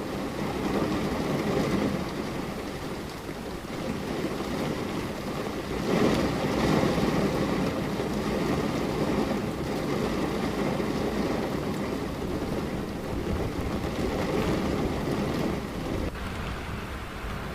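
Steady rain with low, rolling thunder that swells in waves, loudest about six seconds in.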